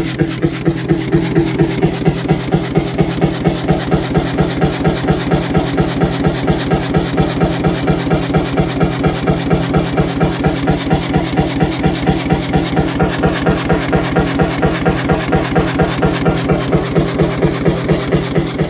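Single-cylinder hot bulb engine running steadily, its slow, even beat at about two and a half firing pulses a second.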